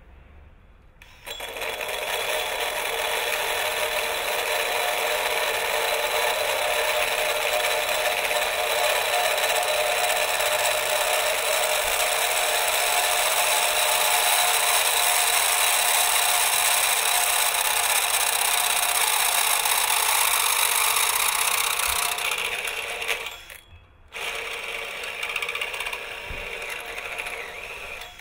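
Cordless drill driving an Irwin bimetal hole saw through a metal pipe: a steady cutting noise of the saw teeth on metal, starting about a second in. It stops briefly about 23 seconds in, then resumes somewhat quieter.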